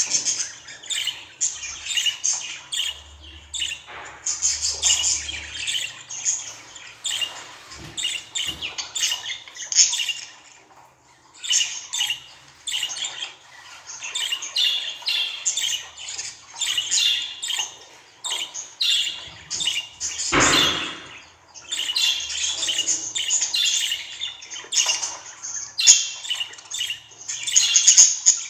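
Budgerigars chattering continuously: rapid high chirps, warbles and squawks. There is a short lull about eleven seconds in, and a brief, louder, fuller sound about twenty seconds in.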